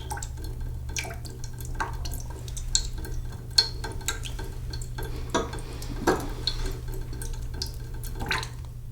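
Water running slowly from a sink tap into a metal cooking pot, with irregular drips, splashes and a few louder gurgles, over a steady low hum.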